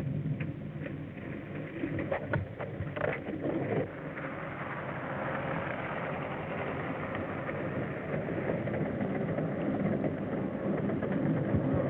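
A vehicle engine running steadily, with a few clicks or knocks about two to four seconds in.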